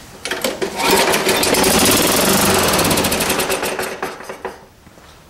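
Craftsman mower's Tecumseh single-cylinder engine running on its freshly cleaned carburetor. It picks up about a second in, runs a few seconds, then slows and dies out.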